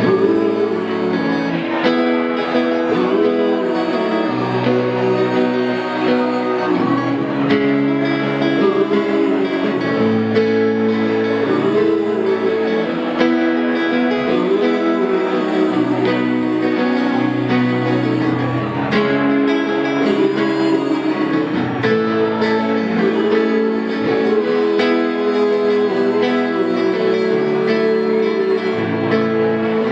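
Two acoustic guitars strummed together, with a man's and a woman's voices singing over them.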